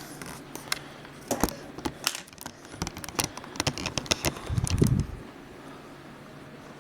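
Scattered light clicks and taps of hands handling a laptop's LCD panel and its connector tape, with a short low rumble of handling about five seconds in.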